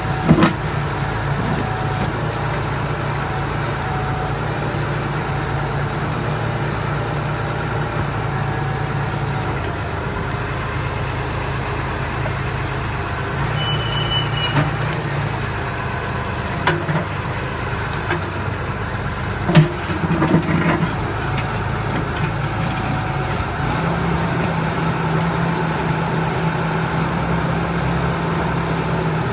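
Backhoe loader's diesel engine running steadily while digging, its note shifting up and down a few times. A few sharp knocks and one brief high squeak about halfway through.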